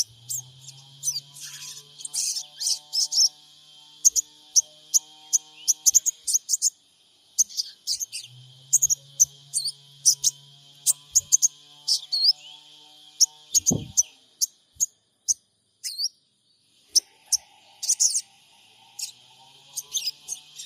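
Sogon bird calling: quick, sharp high chirps and cheeps in irregular runs, some with short rising or falling flicks. A faint low hum comes and goes underneath.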